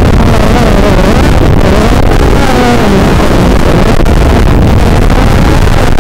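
AstroX 210 racing quadcopter's four 2204 2300KV brushless motors whining, the pitch rising and falling continuously with throttle, over wind noise.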